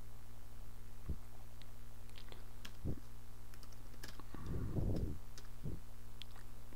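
Computer keyboard keys clicking irregularly as a few words are typed, some strokes landing as soft low thumps, over a steady low hum.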